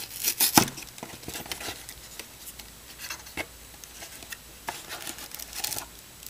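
A cardboard hanger box of trading cards being torn open by hand, with irregular rips and crinkling of the packaging, loudest about half a second in and again around five seconds in.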